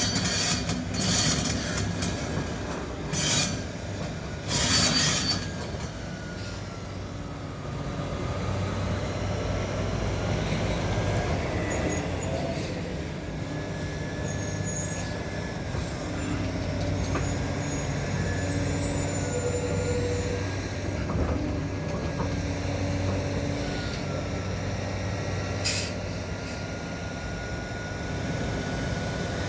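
Link-Belt 490 excavator working: its diesel engine drones steadily under a gliding hydraulic whine, with metallic squealing and scraping. Sharp metal clanks come several times in the first five seconds, with single ones about halfway and near the end.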